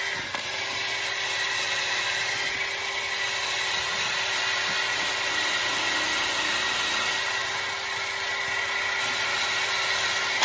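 Handheld electric power tool running steadily while it scours rust off an old steel trowel, with a steady motor hum under a harsh, even grinding hiss; it cuts off suddenly at the end.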